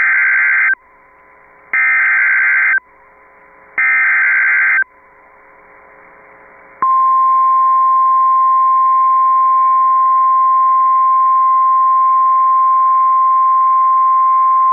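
Emergency Alert System SAME header: three loud, raspy data bursts of about a second each, a second apart, with faint receiver hiss between them. About seven seconds in, the steady 1050 Hz warning alarm tone of NOAA Weather Radio begins and holds, signalling that a warning follows.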